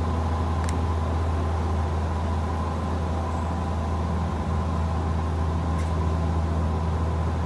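Steady drone of a helicopter's engine and rotors, a loud low hum with a fainter steady higher whine over it.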